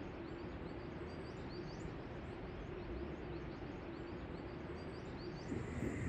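Many small birds chirping in quick short calls over a steady outdoor rushing background. About five and a half seconds in, the background shifts to a different ambience.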